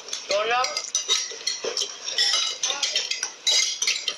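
A metal spoon clinking and scraping against a bowl while someone eats, many quick light clicks.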